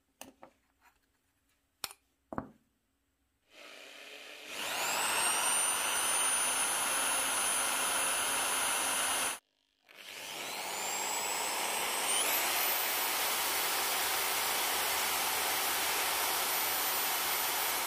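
A few light clicks, then an electric drill boring into an aluminium plate. The motor spins up with a rising whine and runs steadily for about five seconds, then stops. It starts again and runs on, its whine stepping up in pitch about two seconds into the second run, and cuts off at the end.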